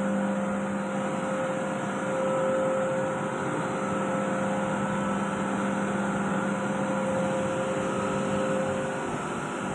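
COAIRE AS102 rotary screw air compressor running: a steady hum with a constant whine above it, unchanging throughout.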